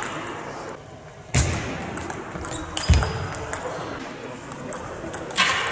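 Table tennis hall sounds: scattered light clicks of a celluloid ball and two heavy thuds about a second and a half apart, echoing in the large hall, with a short noisy burst near the end.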